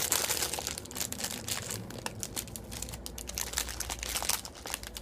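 Plastic candy packaging crinkling and rustling as it is handled, a dense run of quick crackles.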